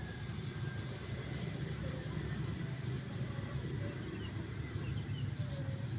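Quiet outdoor background: a steady low rumble, with a few faint high chirps.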